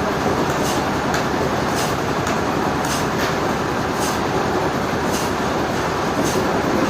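Sawmill machinery running steadily: a dense mechanical rumble with sharp clicks at irregular intervals, roughly every half second to a second.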